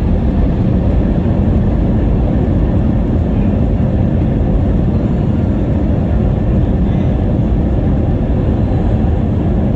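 Steady low rumble inside an Airbus A321 cabin while the jet rolls on the ground after landing: engine noise mixed with the wheels running over the pavement.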